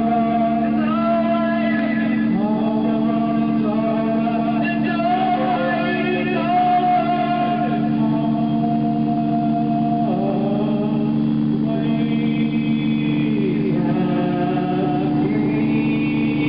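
Singing with music: a voice or voices holding and sliding between notes over a steady low hum.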